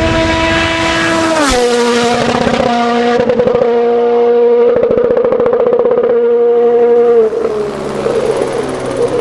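Rally car engine at full throttle, loud. It shifts up once with a sharp crack about a second and a half in, then holds a flat high note that stutters against the rev limiter, and drops away off the throttle about seven seconds in.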